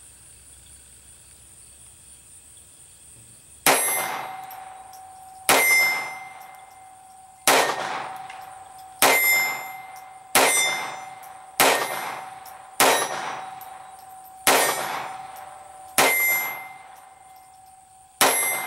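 Browning 1911-22 Compact .22 LR pistol firing ten shots, emptying its 10-round magazine, starting about four seconds in at roughly one shot every one and a half seconds. Each sharp crack is followed by a clear ringing tone.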